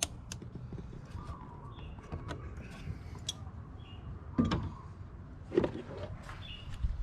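Hose clamp being fitted onto a car's upper radiator hose by hand and pliers: scattered small clicks and metal taps over a low steady hum, with two louder knocks about four and a half and five and a half seconds in.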